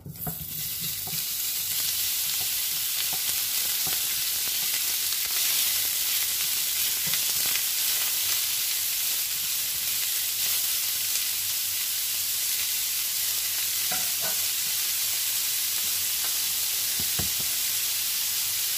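Diced beef and chorizo sizzling in hot oil in a frying pan, starting the moment the meat is tipped in and then holding steady. A spatula stirs and knocks against the pan a few times.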